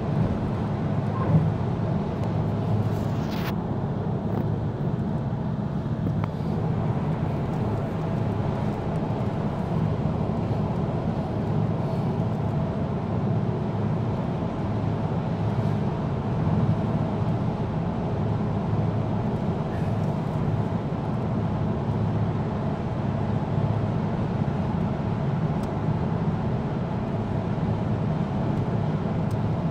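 Steady road and engine drone inside a car cruising at motorway speed, with a brief knock about a second in.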